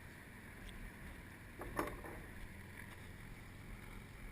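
Steady low rumble of wind on the microphone with water in the background, and one brief pitched cry about two seconds in.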